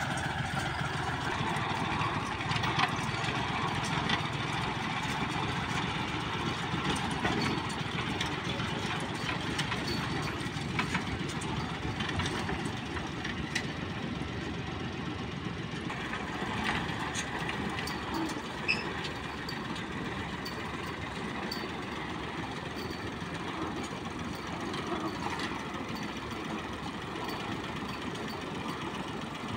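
Small engine of a homemade tractor-based crop-sprayer rig running steadily as the machine drives along.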